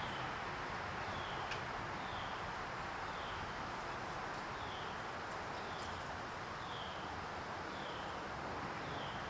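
A bird repeating a short falling chirp about once a second over a steady outdoor hiss, with one faint click in between.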